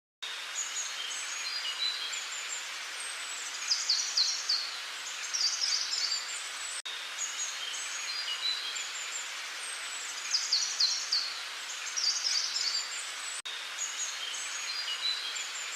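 Birdsong ambience: small birds chirping and trilling in quick high clusters over a steady hiss, with the same few-second stretch looping three times.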